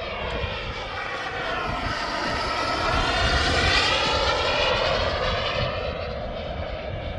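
KingTech K-210 G4+ turbine of a BDX radio-control model jet in flight, a steady turbine whine and rush as it passes by. It swells to its loudest about halfway through, then fades as the jet moves away.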